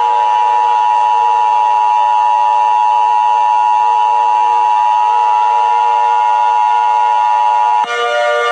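Emergency Alert System attention signal: a loud, steady electronic tone of about 1 kHz held for nearly eight seconds, cutting off suddenly near the end. Faint background music with slowly sliding pitches plays underneath.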